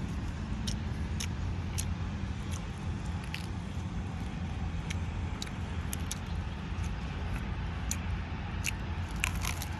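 Chewing and mouth clicks of someone eating raw fish, as short, sharp clicks every half second or so over a steady low rumble.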